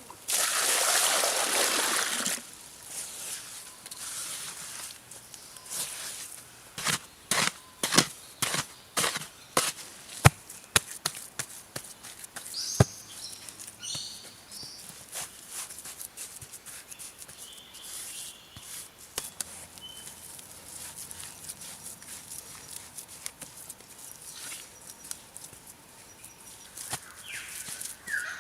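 A rough scraping rush, then a long run of irregular sharp knocks and taps from hand work, with a few bird chirps in the background.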